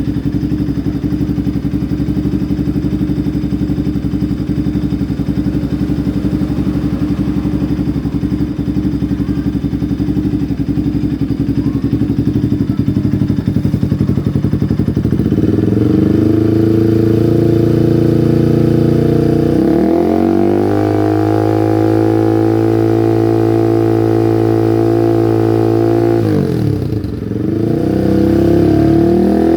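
Bajaj Pulsar 200 single-cylinder engine through an aftermarket Akrapovic exhaust, idling steadily, then revved up about halfway through and held at high revs for several seconds. The revs drop sharply near the end, then climb again.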